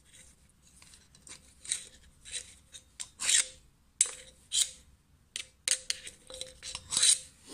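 Screwdriver blade scraping thick grease into the needle-roller bearings in the hub of a nickel-plated moped belt pulley: a string of short, irregular scraping strokes of metal on metal, with a few sharp clicks.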